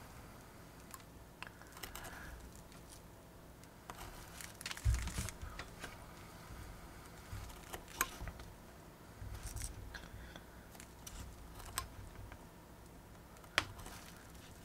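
Paper model parts being cut and handled: scattered light clicks and taps with soft rustling, a low thump about five seconds in and a sharper click near the end.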